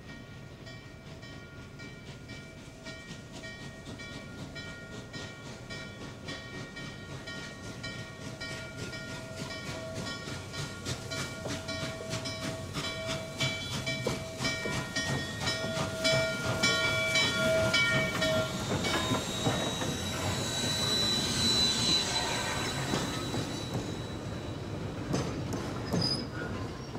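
Norfolk & Western Class J 4-8-4 steam locomotive rolling slowly into a station and passing close by, growing louder, with a steady whine and regular clanking clicks. About two-thirds of the way through, a high metallic squeal comes in as it slows, then fades.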